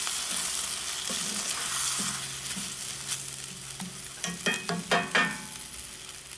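Cream sauce with spinach sizzling and bubbling in a cast-iron skillet as a wooden spatula stirs it, the hiss slowly fading. About four seconds in comes a quick run of five or six sharp clicks.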